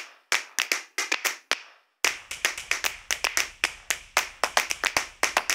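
A run of sharp, clap-like percussive hits: a few spaced ones at first, then from about two seconds in a faster, even run of about five a second over a faint low hum.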